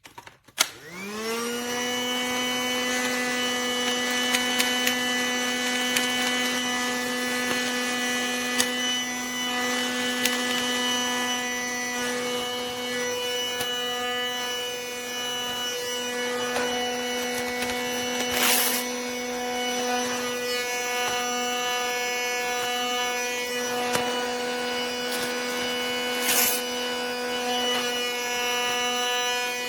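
Casdon Dyson toy cordless vacuum cleaner's small electric motor switched on with a click about half a second in, its whine rising quickly in pitch and then running steadily. Two short rushes of noise break in near the middle and towards the end.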